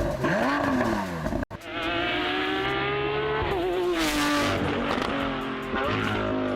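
A car engine revving, its pitch sweeping up and down. The sound cuts out abruptly about a second and a half in, then carries on steadier and drops in pitch about halfway through.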